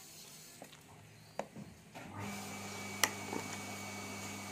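Hard plastic toy dinosaurs and a slab of ice being handled: a few light clicks and taps, the sharpest and loudest about three seconds in. A steady low hum sets in about two seconds in.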